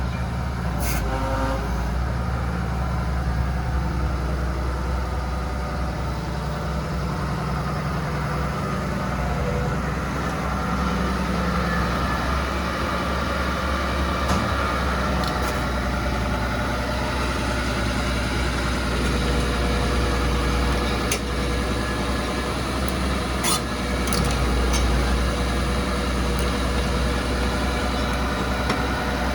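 Hitachi ZX240 excavator's diesel engine running steadily, with a few short sharp clicks or knocks.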